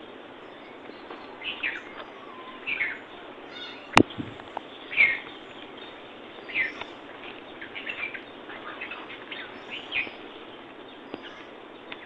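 Birds chirping, short calls coming every second or two over a steady outdoor hiss. A single sharp click about four seconds in.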